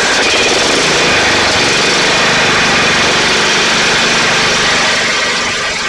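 John Deere LX255 lawn tractor's 15 hp engine running loud and steady just after being started, easing off slightly near the end.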